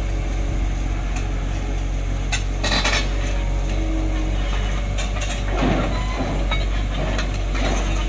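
Tracked excavator's diesel engine running steadily while its steel track links clank and clink as it crawls, with a cluster of sharp metal clanks about two and a half to three seconds in.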